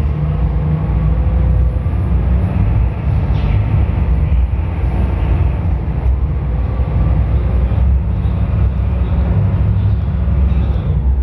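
Small passenger ferry's diesel engine running steadily under way, a loud, continuous low drone.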